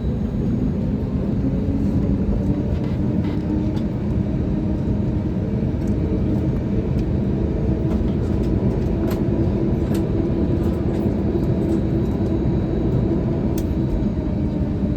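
Steady cabin rumble of an Airbus A320neo taxiing after landing: engines at idle and cabin air, with a few faint rattles and ticks.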